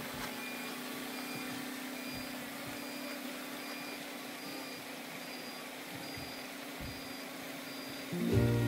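Electronic beeping at an even pace, about three short high beeps every two seconds, over a steady low hum. Music comes in near the end.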